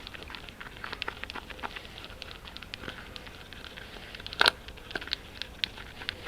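Irregular run of small clicks and crinkling, as of hand work and handling, with one sharper click about four and a half seconds in.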